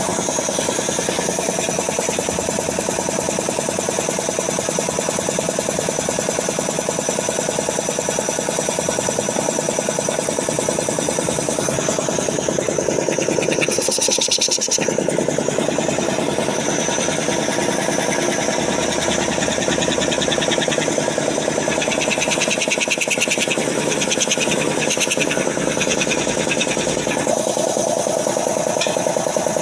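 Puma 5 HP air compressor, freshly fitted with new piston rings, running steadily without load during its run-in, with a fast, even piston rhythm.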